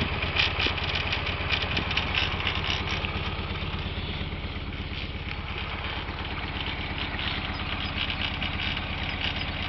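Narrowboat's engine idling steadily, an even rapid run of firing pulses.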